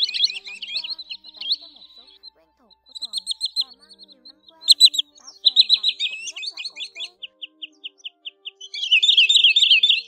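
Green sandpipers calling: rapid series of high, sharp whistled notes in overlapping bursts, breaking off briefly about two seconds in. Around six to seven seconds in comes an evenly spaced run of single notes, and a dense, loud flurry of calls comes near the end.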